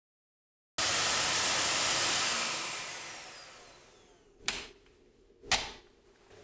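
Dyson DC15 upright vacuum cleaner's motor running loudly, then switched off and winding down, its whine falling in pitch over about two seconds. Two sharp clicks follow, about a second apart.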